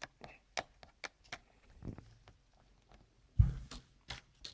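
Jigsaw puzzle pieces being handled and pressed into place in a puzzle book: a run of light clicks and taps, with one louder thump a little past three seconds in.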